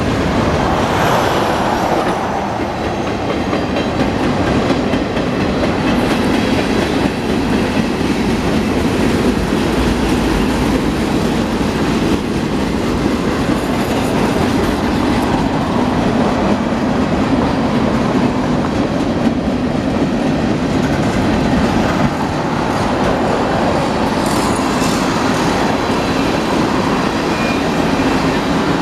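Freight train cars rolling past at close range: a steady rumble and rattle of steel wheels on the rails as autoracks and then tank cars go by.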